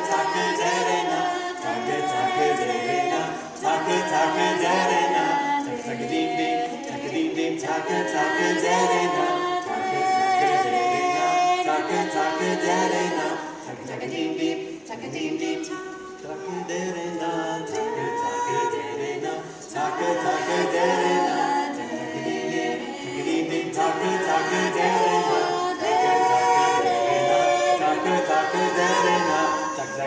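Four voices singing a cappella in four-part harmony, without words, in phrases with short breaks between them.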